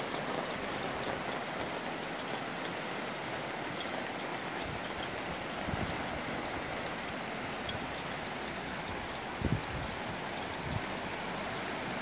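Light rain falling steadily, a soft even hiss with faint drop ticks, with a short low thump a little past two-thirds of the way through.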